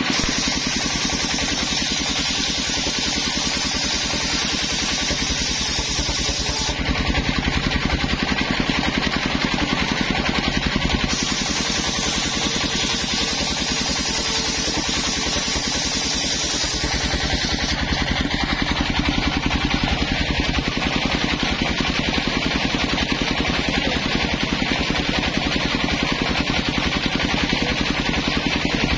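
Engine of a homemade circular saw table running steadily under load while the large blade rips coconut-wood planks, a higher hiss of the cut coming in two spells, at the start and around the middle.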